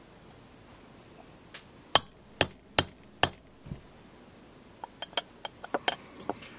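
Hammer striking a steel punch to drive a tight extractor pin out of a Smith & Wesson third-generation pistol slide: four sharp strikes about half a second apart, then a quicker run of lighter taps near the end.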